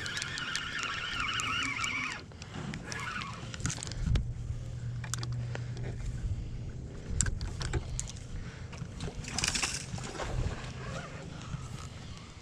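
Fishing rod and reel handling noise while a hooked tarpon is fought, with a wavering buzz for the first two seconds, a low rumble in the middle, scattered clicks, and a short burst of noise about nine and a half seconds in.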